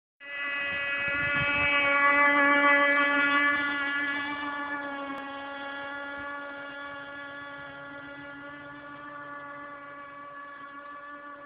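CEN Aqua Jet RC boat's motor running at a steady high pitch. It is loudest about two to three seconds in, then fades as the boat runs off across the water.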